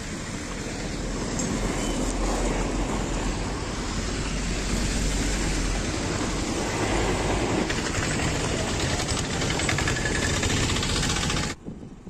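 Steady outdoor rumble of road traffic with a noisy hiss over it. It cuts off abruptly just before the end.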